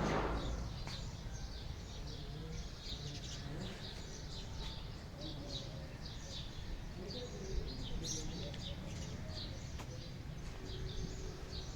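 Many small birds chirping, with short, quick, overlapping chirps, over a low steady background rumble.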